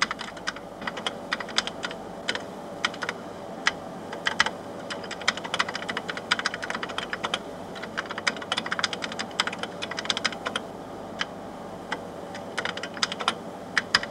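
Typing on a 1970s visual display unit keyboard: rapid runs of key clicks with short pauses, over a faint steady hum.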